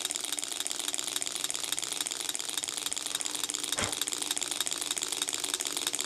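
Model Gatling six-cylinder Stirling engine running on an alcohol burner, its pistons and linkage making a rapid, even mechanical clatter. A single knock sounds about four seconds in.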